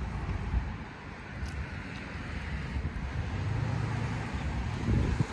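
Outdoor background of road traffic rumble with wind on the microphone; a vehicle swells up in the second half.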